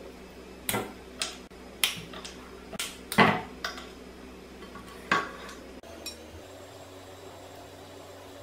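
Pieces of cinnamon stick broken off and dropped into a stainless steel mixer-grinder jar. They land as about seven sharp clinks and taps over the first five seconds, the loudest a little past three seconds in, followed by only a faint steady hum.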